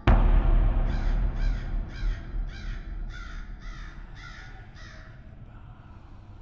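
A sudden deep boom at the start that rumbles away over several seconds, while a crow caws about eight times, roughly twice a second, the caws fading out toward the end.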